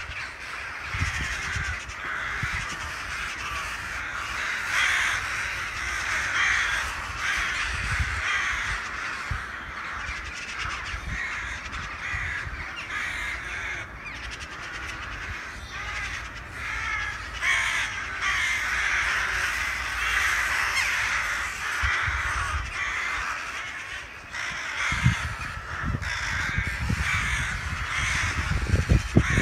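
A large flock of crow-family birds calling continuously, many harsh calls overlapping into a dense, unbroken chorus.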